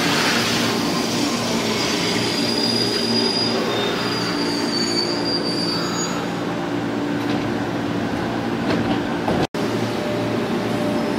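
JR 205 series electric commuter train slowing along a station platform, its wheels rumbling over the rails, with a thin high-pitched wheel squeal as it brakes in the middle of the sound. It breaks off abruptly about nine and a half seconds in, then a steady hum of the train standing at the platform.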